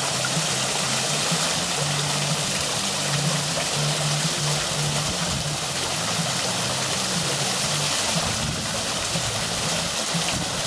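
Water running and splashing steadily down a decorative stone cascade fountain.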